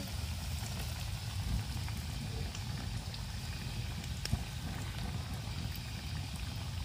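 A new batch of noodle nuggets frying in oil on a small stove: a steady sizzle over a low rumble, with a few faint clicks.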